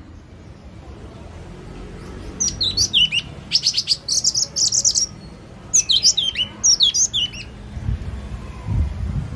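Yellow-cheeked tit calling: three bursts of high, quick chirping notes, many of them sliding down in pitch. A few low thumps come near the end.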